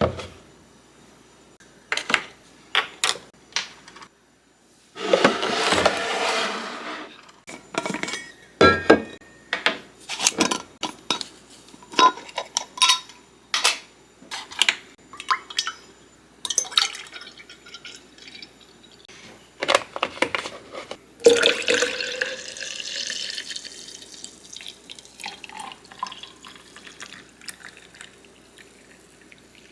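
Kitchen sounds: dishes and utensils clinking and knocking throughout, with two short stretches of running water, one about five seconds in and a longer one about twenty-one seconds in.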